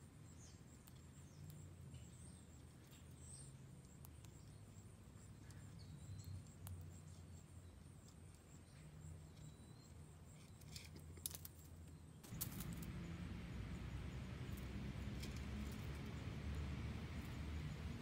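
Faint outdoor ambience: a low steady rumble with a thin, steady high-pitched tone and a few faint chirps and clicks. About two-thirds of the way through it switches abruptly to a louder, steady hiss and rumble.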